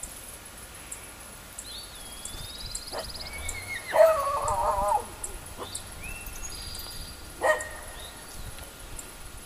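A loud, wavering animal call about four seconds in, lasting about a second, with a shorter call a few seconds later, over high chirps from birds or insects.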